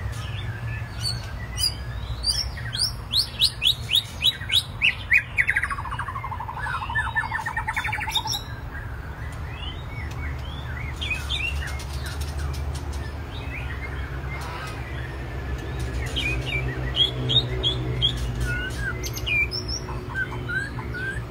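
White-rumped shamas singing and calling: a fast series of loud repeated notes falling in pitch about two to eight seconds in, then scattered short chirps and whistles.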